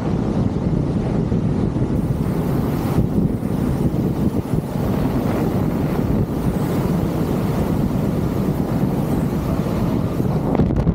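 Wind rushing over the camera microphone during a fast wingsuit flight: a loud, steady rush of air that is heaviest in the low end. The higher hiss drops away just at the end.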